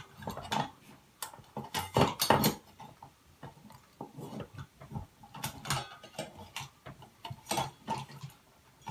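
Irregular light clicks and clinks of ceiling fan hardware and wires being handled as the fan's hanger ball is seated in its mounting bracket and the wires are pushed aside.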